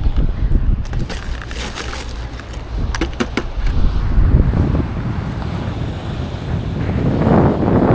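Wind buffeting the microphone over waves washing on the beach, with a few sharp crackles and clicks between about one and three and a half seconds in.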